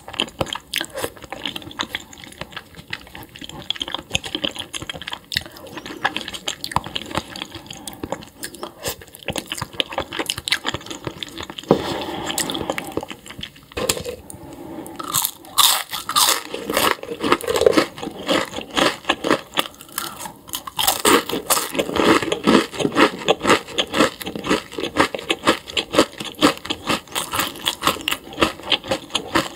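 Close-miked chewing of crunchy food: a long run of quick, irregular crunches and mouth sounds, getting louder and busier about halfway through.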